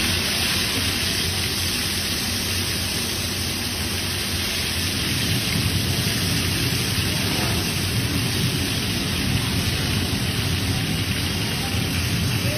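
Ghewar batter streamed into a pan of hot frying fat, sizzling and crackling loudly and steadily as it froths, over a low rumble.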